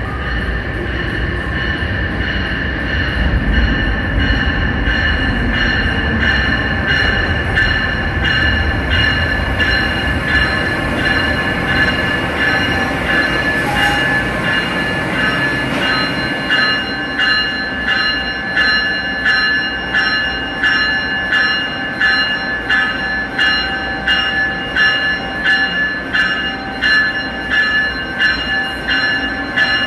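An Amtrak train with an ACS-64 electric locomotive rolling through, its electronic bell ringing steadily about twice a second. The low rumble of the train is heavy at first and drops away about halfway through while the bell keeps ringing.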